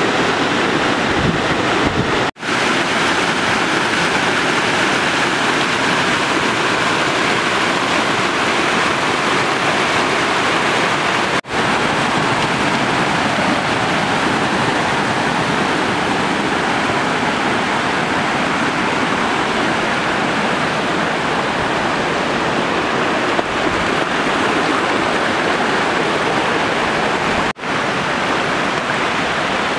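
Steady rushing of a waterfall and its stream pouring down a rocky gorge, cut off for an instant three times.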